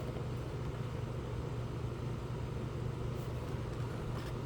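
A steady low hum with a couple of faint ticks.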